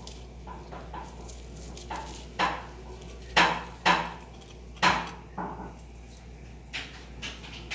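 Dry, crumbly sand-and-cement clumps being broken apart by hand: a series of sharp cracks and thuds, the loudest coming close together between about two and five seconds in, with a few lighter ones near the end.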